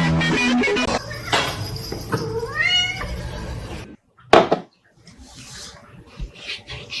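A cat meowing, with one long meow rising in pitch about two seconds in, after a loud, busy first second. A short loud call follows just after a break near the middle.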